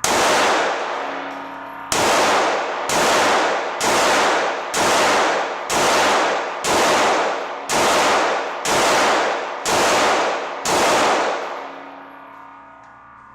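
Glock 17 9mm pistol firing eleven shots at a steady pace of about one a second, after a short pause following the first. Each shot is loud and followed by a long ringing tail.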